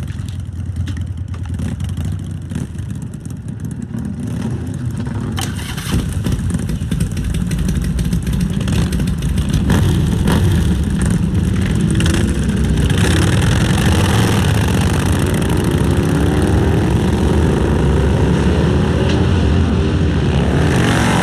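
Several motorcycle engines running together, growing louder about six seconds in and revving up repeatedly as they pull away.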